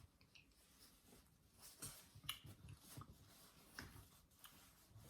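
Near silence, with a few faint, scattered clicks and mouth sounds of eating dessert.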